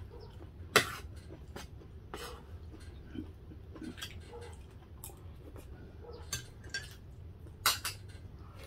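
Metal spoons and forks clinking and scraping against ceramic plates and bowls while people eat, with scattered sharp clinks, the loudest about a second in and near the end. A low steady hum runs underneath.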